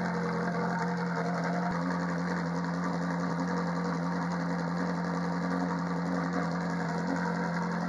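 Ferrari 458 Challenge's 4.5-litre flat-plane V8 idling steadily, heard close at the exhaust tips.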